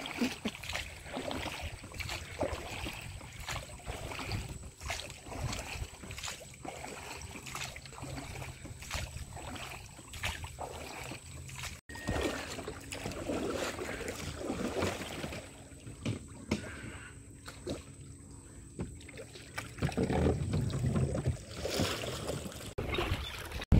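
Wooden rowboat being rowed by hand: irregular knocks of the oars against the boat, with the splash and wash of water. Voices come in faintly about halfway through and again near the end.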